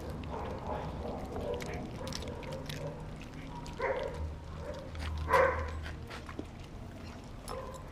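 Two dogs biting and tugging at a whole raw fish held in a hand, with many small clicks of teeth and mouthing. There are two short dog sounds, about four and five and a half seconds in; the second is the loudest.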